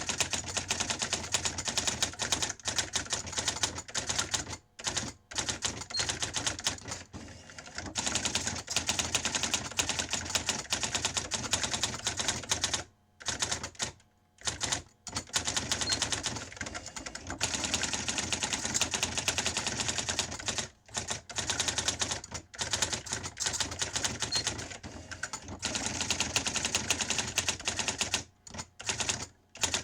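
Sears Electronic Communicator 2 daisy wheel typewriter typing: a fast, steady stream of sharp print strikes, broken by a few short pauses.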